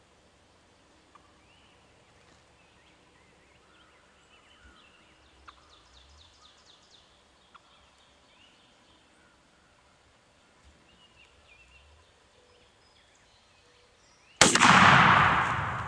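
Wild turkeys calling softly with faint clucks and yelps, then near the end a single very loud blast from a Remington 870 Express pump-action shotgun that dies away over a second or so: the shot that kills the gobbler.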